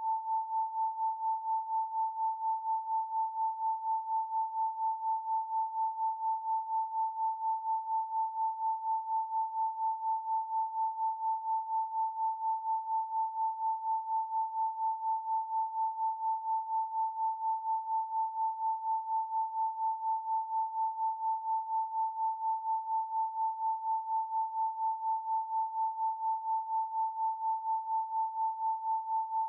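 A pure 888 Hz sine tone held steady, its loudness pulsing evenly a few times a second.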